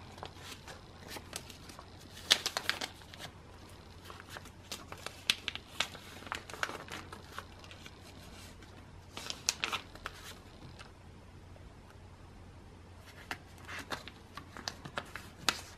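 Photocards and plastic binder sleeves being handled: scattered crinkles, rustles and light clicks in a few short bursts, with quiet spells between.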